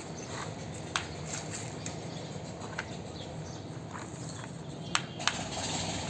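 Scattered sharp clacks of plastic toy vehicles and small hard white lumps knocking on a concrete floor over steady background noise, with one clack about a second in and the two loudest close together about five seconds in.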